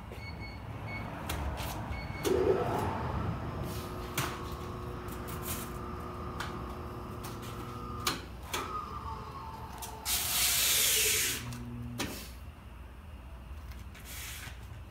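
Electronic wheel balancer spinning a tyre on an alloy wheel for a balance run: a rising whine as it spins up, a steady hum while it measures, then a falling whine as it brakes to a sudden stop. A loud hiss comes about ten seconds in, with a few clicks along the way.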